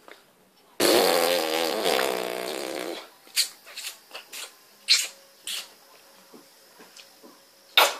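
A raspberry blown through the lips: a loud, rough buzz lasting about two seconds, starting about a second in. It is followed by a string of short lip smacks and pops.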